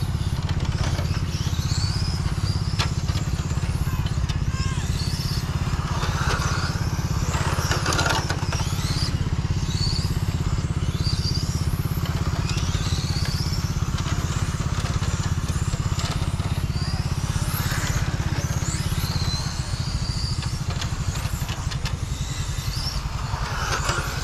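Battery-electric radio-controlled car driving around an asphalt track, its motor whine rising and falling in pitch as it speeds up and slows, with a few brief bursts of tyre scrub.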